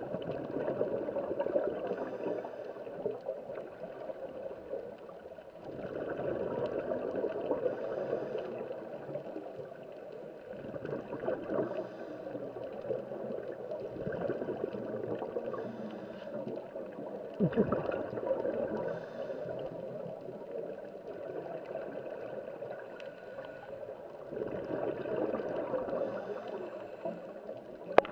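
Underwater bubbling and gurgling that swells and fades about every five seconds, the rhythm of a scuba diver's exhaled bubbles from the regulator. A short knock is heard once, well past halfway.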